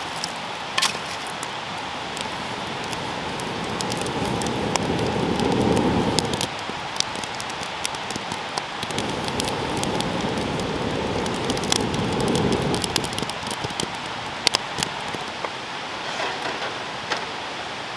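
Wood campfire crackling and popping under a steel grill grate: a steady hiss with many sharp little pops. It swells louder twice, around four to six seconds in and again from about nine to twelve seconds.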